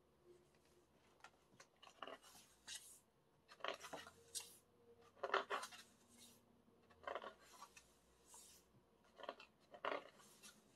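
Pages of an album's photo book being turned by hand, a series of faint, short papery swishes about once a second.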